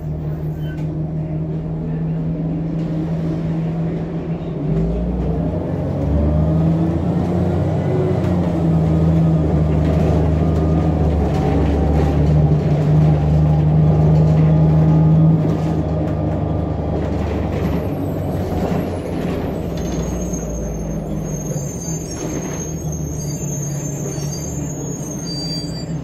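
Blue Bird Xcel 102 CNG bus's John Deere 8.1G natural-gas engine and drivetrain running, heard from inside the passenger cabin. It grows louder with a rising whine as the bus accelerates until about halfway, then drops back to a steadier drone.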